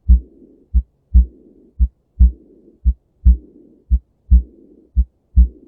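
Abnormal heart sounds with a murmur: paired low thumps about once a second, a rushing murmur after the louder thump of each pair that fades until the softer one, then a short quiet gap before the next pair.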